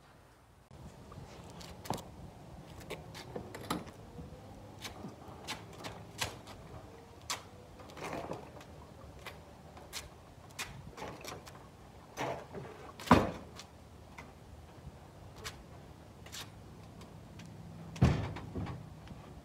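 Knocks, clanks and thumps of a Suzuki LTR 450 quad being manhandled up onto a pickup truck's tailgate and bed. The loudest are two heavy thumps, one a little past halfway and one near the end.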